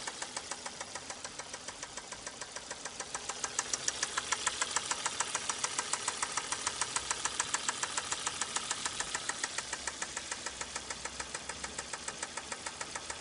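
Volvo S60's 2.4-litre naturally aspirated five-cylinder engine running with a rapid, regular metallic knock: a worn connecting-rod bearing.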